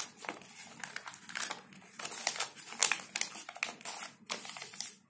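A sheet of paper being folded and creased by hand, with irregular crinkling and rustling.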